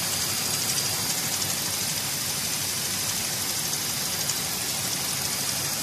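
Diesel engine idling steadily, its accessory drive belt running over a tensioner pulley with a freshly replaced bearing. A faint steady high whistle sits over the running. The owner puts this down to the belt sitting off-centre, riding onto the side of the power steering pulley and slipping slightly.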